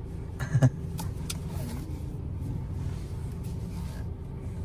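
Ford Ranger pickup driving, with steady low engine and road rumble heard from inside the cab. A short thump comes about half a second in, followed by a couple of light clicks.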